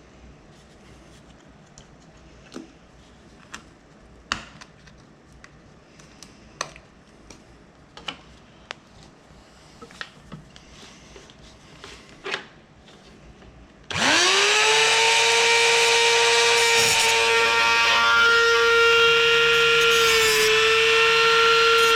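Scattered light clicks and taps of small tools on a plastic case, then about two-thirds of the way in a Dremel rotary tool with a cutting wheel spins up to a loud, steady high whine. The pitch dips briefly near the end.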